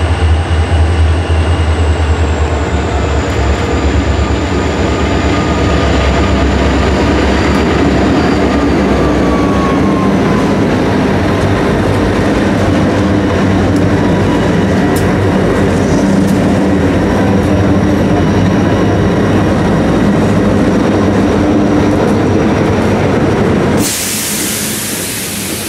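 Freight train passing: EMD SD40-2 diesel locomotives rumble by with a strong low engine hum, then loaded hopper cars roll past with steady wheel rumble and faint wheel squeal. Near the end a sudden hiss comes in.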